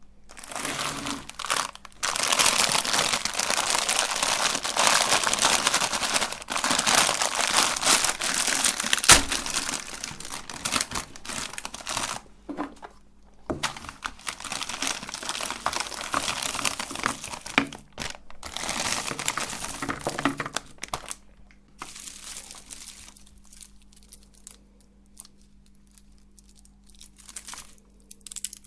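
Crinkling and tearing of plastic candy packaging. It is loud and dense for the first ten seconds or so, then comes in shorter bursts that grow fainter, with a faint steady hum underneath over the last third.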